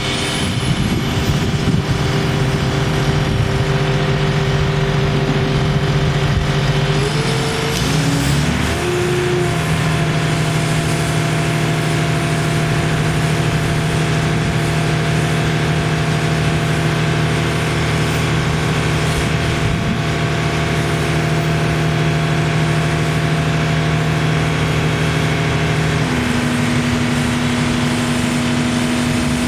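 Terex T560 truck crane's engine running at raised speed to drive the hydraulics while the boom is raised and swung. Its steady pitch shifts about eight seconds in and changes again near the end as the operator works the controls.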